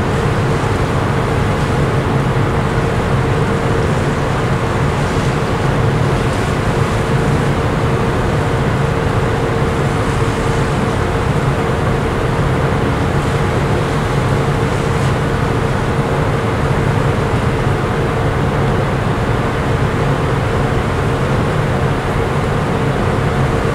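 Steady rumble and hiss of a cruise ship under way, its engines and onboard machinery humming with one constant mid-pitched drone.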